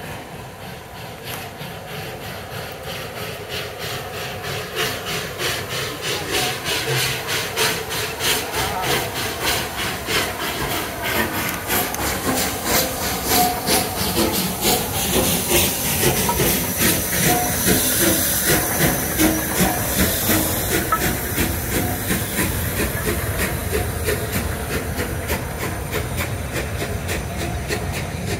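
Rebuilt Bulleid West Country class steam locomotive 34046 Braunton pulling away from a stand, its three-cylinder exhaust beating in a steady rhythm over hissing steam. The sound grows louder as the engine draws past, then eases as the coaches roll by near the end.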